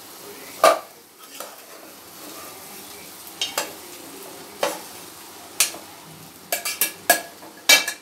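Steel ladle stirring chopped spiny gourd in an aluminium pot, scraping and clinking against the metal sides over a steady sizzle of frying oil and spices. Sharp clinks about a second in, a few scattered through the middle, and a quick run of them near the end.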